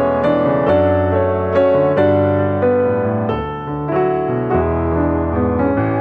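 Piano music: a steady run of notes with no fireworks bangs heard.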